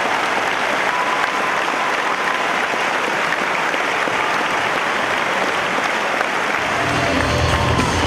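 Large arena crowd applauding steadily. Near the end, music with a low bass line comes in under the clapping.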